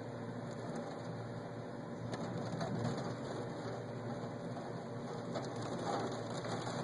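Steady rain of a thunderstorm, an even hiss with faint scattered drop ticks and low swells about three and six seconds in.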